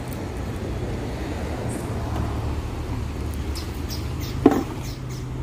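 Steady low engine hum, with one short, loud, sharp sound about four and a half seconds in.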